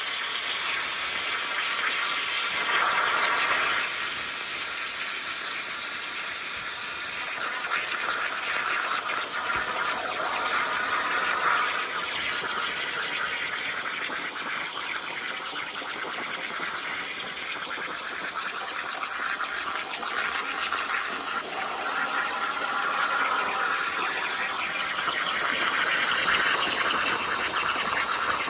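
CNC plasma torch cutting steel plate: the plasma arc and its air jet make a steady crackling hiss.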